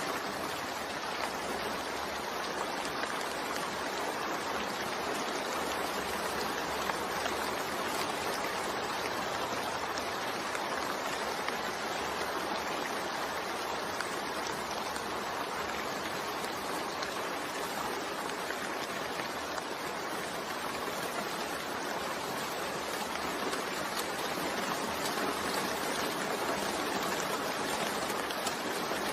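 Steady recorded rain blended with white noise: an even, unbroken hiss with no separate drops, thunder or changes.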